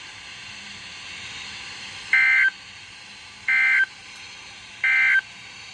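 Emergency Alert System end-of-message data tones over NOAA Weather Radio: three short identical bursts of digital data tones about a second apart, with steady radio hiss between them.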